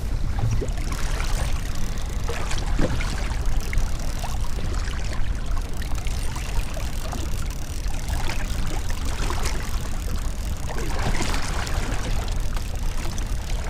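Fishing boat's motor running steadily at trolling speed, with water splashing and rushing along the hull.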